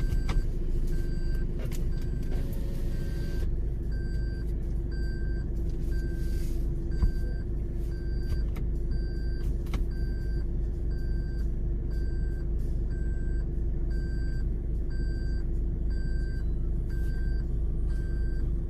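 Off-road vehicle engine running steadily at idle, with a short electronic beep repeating about every three-quarters of a second. A few clicks come early on, and a single knock comes about halfway through.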